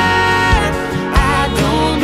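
Country song instrumental break: a lead line slides up into long held notes over bass and a steady beat.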